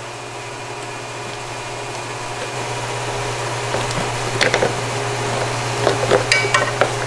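Small clicks and rattles from pliers and fingers working a plastic wire-harness clip on the air box, starting about four seconds in, over a steady low hum.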